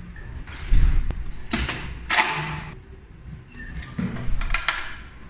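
Hard plastic clacks and knocks with some metallic rattle as the orange plastic base of a mechanical gumball vending machine is handled and pulled open to get at the coins. The loudest knocks come a little under a second in and around two seconds in, with a further cluster of clacks around four seconds in.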